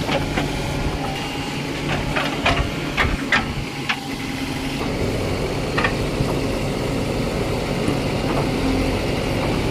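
Heavy diesel machinery running steadily, a backhoe loader working beside a tractor, with a handful of sharp knocks around two to four seconds in and one more about six seconds in.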